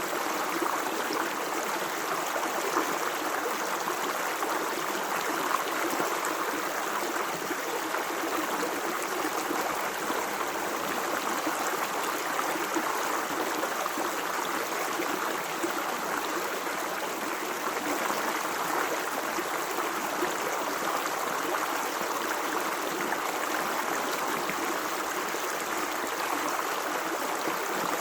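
A stream of water running and babbling over rocks, steady and unbroken.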